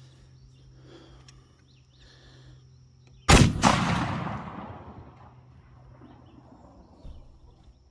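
A 10-gauge double-barrel shotgun fires one 3½-inch magnum slug about three seconds in: a single very loud shot followed by a rolling echo that fades away over about two seconds.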